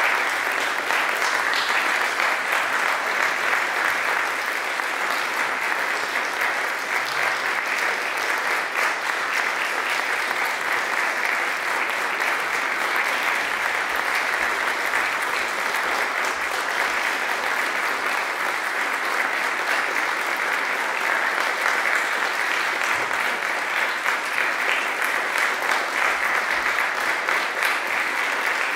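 Audience applauding steadily: dense, even clapping from a large crowd.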